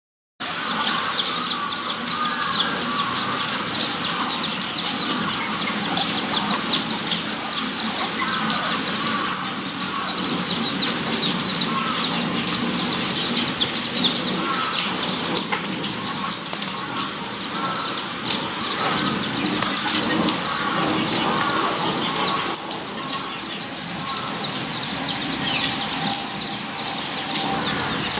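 A group of guinea pigs squeaking and chattering without pause, many short high squeaks overlapping.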